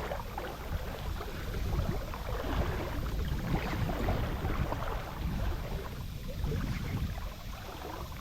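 Wind buffeting the microphone in low, uneven gusts, with water lapping and rustling against an anchored kayak.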